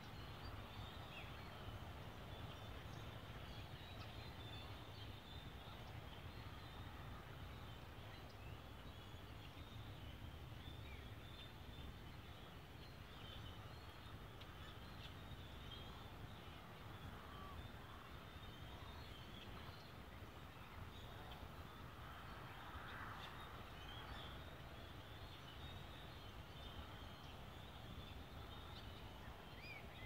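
A large flock of white birds calling faintly, many short high calls overlapping, over a low steady rumble.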